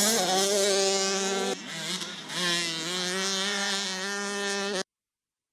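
Motocross bike engines revving hard as the bikes race past, the pitch rising and falling as they work the throttle. The sound cuts off abruptly near the end.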